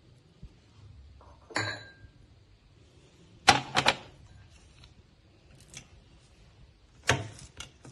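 A steel spoon and plate clinking: one ringing metallic clink about a second and a half in, a quick run of three knocks around the middle, and a few lighter clicks near the end.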